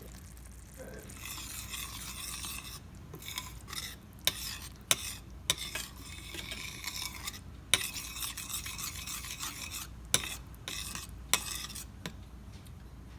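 A utensil stirring coconut milk into a curry spice sauce in a pan: scraping swishes in stretches, with about six sharp clinks against the pan.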